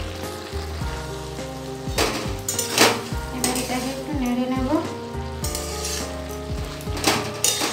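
A metal spatula stirs and scrapes a thick banana-flower and prawn curry around an aluminium kadai, with sharp scrapes against the pan about two seconds in, again around three seconds, and near the end. Underneath, the curry sizzles as its liquid cooks down, over soft background music.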